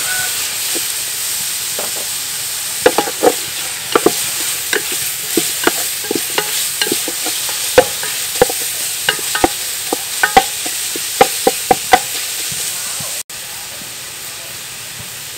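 Shallots and red chili paste sizzling in hot oil in a metal pot while a wooden spoon stirs them, knocking and scraping against the pot in quick, irregular taps. Near the end the taps stop and only a slightly quieter, steady sizzle remains.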